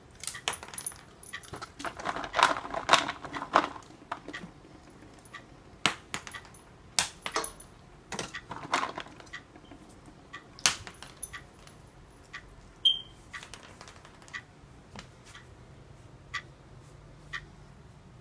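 Small dog moving about on a hard tiled floor: sharp clicks and clinks, with two spells of dense crackling, about two and eight seconds in.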